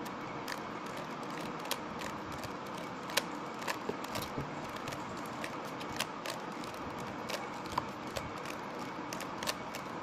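Plastic 3x3 Rubik's cube being turned by hand, its layers clicking as they rotate and snap into place, at irregular intervals over a steady background hiss.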